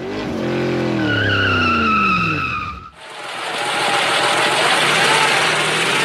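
Vehicle sound effects: a truck engine winds down, its pitch falling under a whining tone, for about three seconds. After a short break, a car sound follows, a loud, steady rush of engine and tyre noise.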